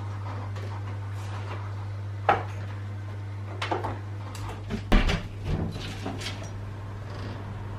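Household clatter: a handful of knocks and clicks, like cupboards, doors or dishes being handled, the loudest about five seconds in, over a steady low hum.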